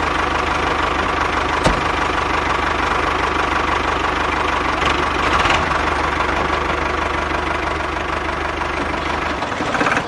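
Tractor engine running steadily with a fast, even low chug, with one short click a little under two seconds in.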